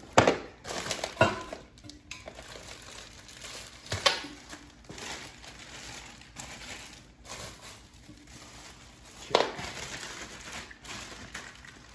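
Plastic packaging crinkling and rustling as small toilet-seat hardware is handled, with a few sharp knocks; the loudest come just after the start and about nine seconds in.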